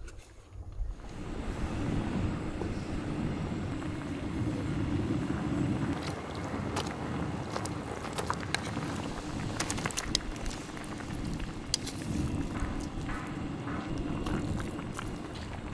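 Spicy red sauce cooking on a cast-iron cauldron-lid pan, with a steady low rushing sound that starts about a second in. Scattered light clicks and taps come in the second half as raw chicken pieces are tipped into the sauce and a wooden spoon works the pan.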